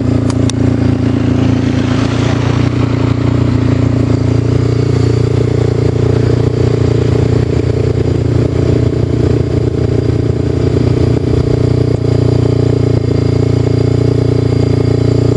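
A motor vehicle engine running steadily at constant speed, with a brief rush of higher-pitched noise about two seconds in.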